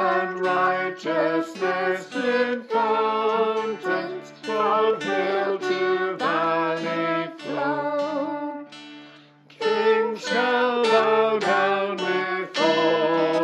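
Hymn sung by voices over acoustic guitar accompaniment. The music falls away briefly about nine seconds in, between verses, then the next verse starts.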